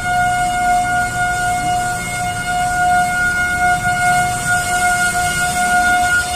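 A mushola's fast-breaking siren (gaok) sounding one long steady tone, with no rise or fall in pitch.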